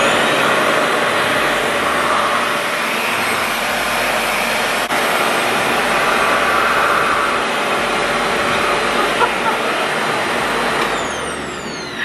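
Revair reverse hair dryer running with a section of hair drawn into its wand, a steady rush of suction air that dies down near the end.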